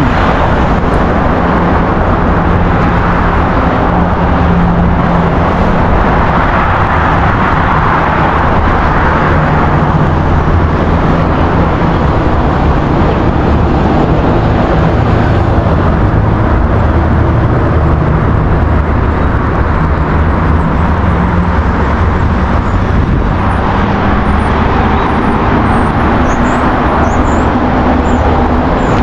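Steady road traffic noise: cars running along a busy multi-lane road, with a low engine hum under a constant rush of tyre and engine noise.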